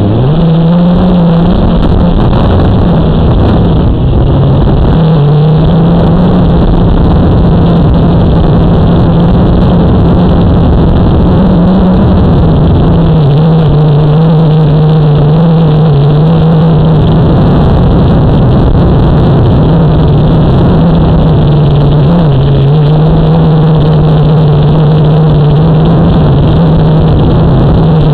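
Motor and propeller of the aircraft carrying the camera, running steadily at altitude: a loud, even hum whose pitch wavers a little with the throttle, over a rush of wind noise.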